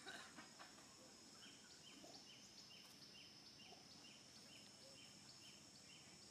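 Faint outdoor ambience: a steady high-pitched drone with a short chirp repeating about four times a second, plus a few brief clicks near the start.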